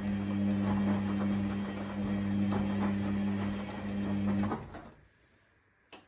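Arçelik 7103 Y front-loading washing machine tumbling its drum: a steady motor hum with wet clothes and water sloshing and slapping, which winds down and stops about five seconds in as the wash tumble ends before the intermediate spin. A single brief click follows near the end.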